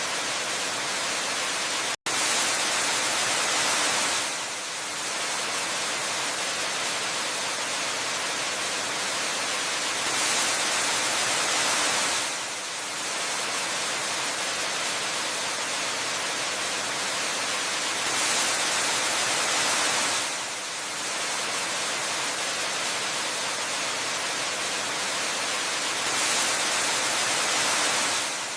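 Waterfall rushing steadily, a dense hiss of falling water that swells a little in loudness about every eight seconds. It cuts out for an instant about two seconds in.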